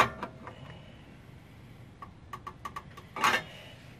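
Ratchet wrench on an extension working a bolt under the car: a sharp knock at the start, then a quick run of about six small ratchet clicks, followed by a louder metallic clank about three seconds in.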